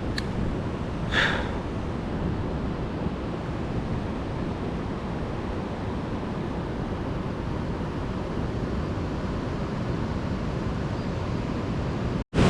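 Steady rushing noise of wind and moving water, with one brief louder rush about a second in; it cuts off abruptly just before the end.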